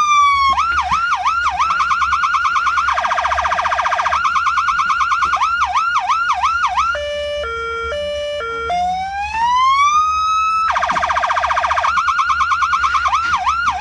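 A 200-watt, 12-volt electronic car siren sounding through its horn speaker and switching between tones. A wail falls off, then comes a fast yelp of about three whoops a second, a very rapid warble, and a two-note hi-lo. After that a slow rising wail, then warble and yelp again.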